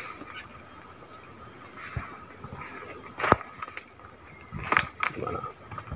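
Steady high-pitched chorus of rainforest insects, with a few sharp snaps and crackles from walking through the undergrowth, the loudest about three seconds in.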